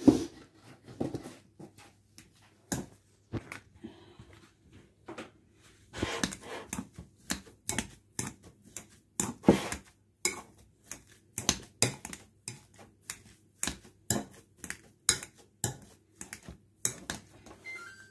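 Metal wire potato masher mashing boiled potatoes in a glass bowl: an irregular run of clicks and knocks as the masher strikes the bowl.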